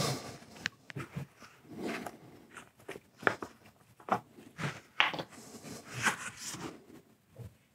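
Plastic epoxy jugs and a plastic measuring cup being handled: a scattering of short, irregular clicks and knocks with some rustling as a jug is lifted and its cap taken off.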